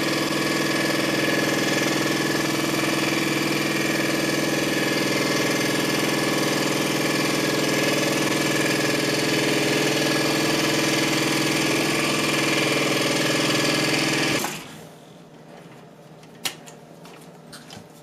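Scroll saw with a Pegas MGT5R blade running and cutting through a hard maple spoon blank. The motor's steady hum cuts off sharply about three-quarters of the way through, followed by a few light clicks.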